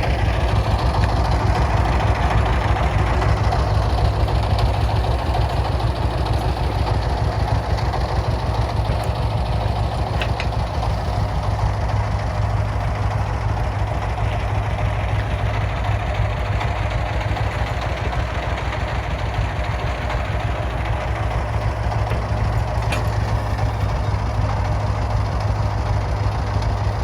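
Diesel engine idling steadily with a fast, even low chugging.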